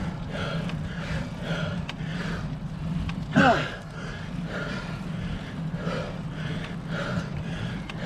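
A cyclist's hard, fast panting, about two breaths a second, from the effort of climbing a steep hill. A brief loud sound falling in pitch cuts in about three and a half seconds in.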